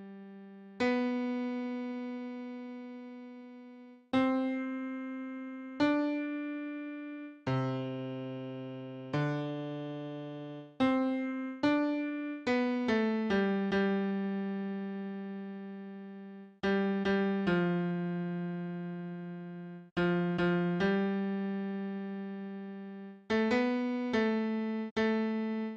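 Bass line of a hymn played on a keyboard with a piano sound, one note at a time in a low register. Each note starts sharply and fades. The notes come slowly at first, then in a quicker run from about twelve seconds in.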